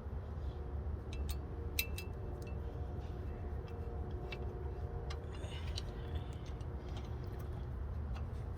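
Scattered light metallic clicks and taps of a screwdriver and small screws being fitted to a brake rotor, over a steady low rumble.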